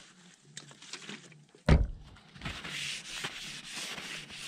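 A single sharp knock, then a paper towel rubbing back and forth over the truck's roof, wiping it down with alcohol to clear oil and grease.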